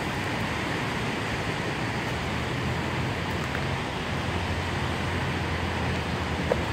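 Steady rushing of a flood-swollen river running high and fast after heavy rain, with water pouring over the low dam falls.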